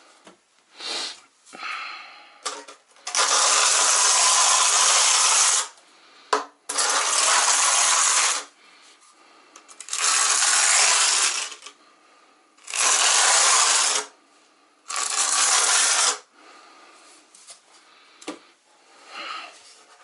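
Notched trowel scraping across the back of a porcelain tile, combing mortar into ridges: five long scraping strokes of one to two and a half seconds each, after a few short clinks in the first couple of seconds.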